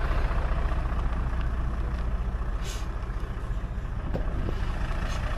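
Diesel engine of a Hino truck running steadily, a constant low rumble.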